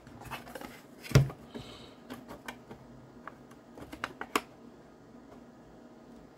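The hood of a Kantronics KPC-3 Plus packet modem being slid onto its case and handled: a sharp knock about a second in, then a few light clicks and taps that die away after about four and a half seconds.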